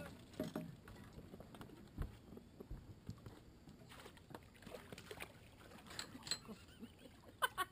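Scattered light knocks and clicks of fishing gear being handled on a boat, with a single low thump about two seconds in.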